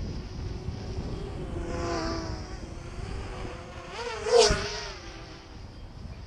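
Small FPV quadcopter drone's motors and propellers buzzing, the pitch swinging up and down as the throttle changes. A single sharp knock about four seconds in, the loudest sound.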